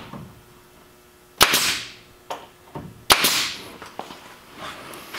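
Pneumatic staple gun firing three times, about a second and a half apart, each a sharp crack followed by a short hiss of air, tacking a thin wooden wrap panel onto a trailer's frame.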